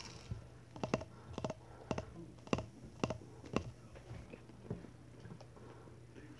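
Fingers tapping a glass bowl: a run of sharp, ringing taps, some in quick pairs, about two a second, with one weaker tap later.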